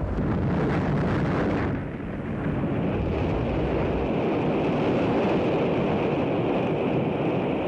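Atlas-Centaur rocket blowing up in flight: a loud, continuous rumbling noise, with a brief dip about two seconds in.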